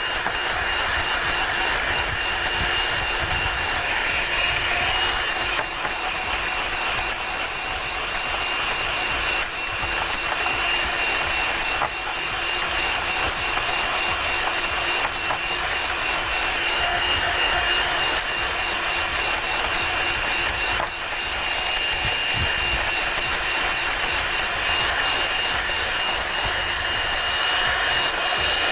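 Electric hand mixer running steadily with a constant high motor whine, its beaters whipping chantilly cream with small pieces of fresh mango in a glass bowl.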